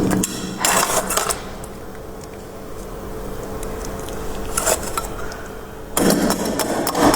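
Crisp crunching of shaved freezer-frost ice in short bursts, with a faint steady hum in a quieter stretch. The loud crunching resumes about six seconds in.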